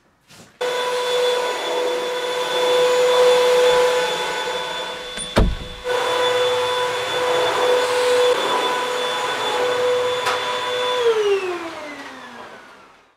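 Corded vacuum cleaner switched on and running steadily with a pitched motor whine, a single thump about five seconds in; near the end it is switched off and the motor winds down, its pitch falling as it fades.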